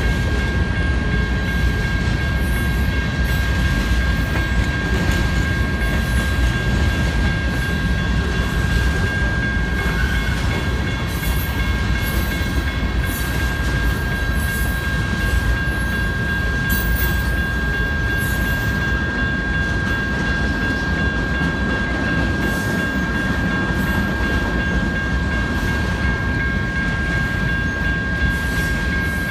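Freight cars of a manifest train rolling past at a grade crossing: a steady low rumble with scattered clacks of steel wheels over the rail joints. The crossing's electronic warning bells ring steadily over it.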